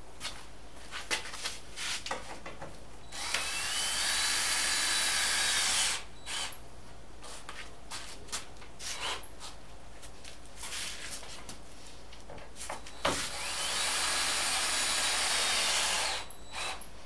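Cordless drill run twice into the base of a plywood camper wall, each run about three seconds long, its motor whine rising as it spins up. Light clicks and knocks from handling the drill and panel come in between.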